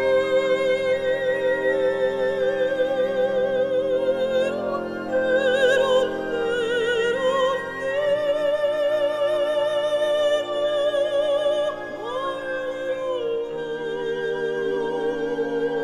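Background music: a solo operatic voice singing long notes with wide vibrato over sustained accompaniment chords.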